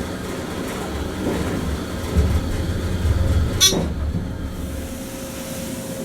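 Dover hydraulic elevator running during a ride: a steady low rumble, with one sharp clack about two-thirds of the way through, after which a steady hum sets in.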